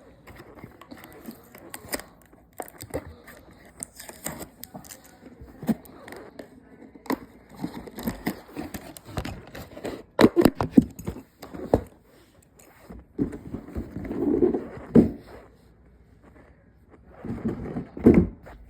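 Taped cardboard toy box and its plastic packaging being worked open by hand: irregular scraping, rustling and clicks, busiest about ten seconds in.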